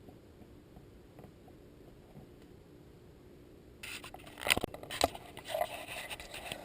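Near quiet at first, then about four seconds in, handling sounds of a knife and small persimmon seeds: a few sharp clicks and light scraping.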